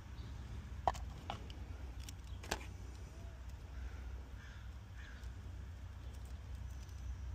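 Handling of a borescope camera's coiled cable: a few small clicks and knocks in the first few seconds over a low steady hum. Around the middle come three faint crow caws.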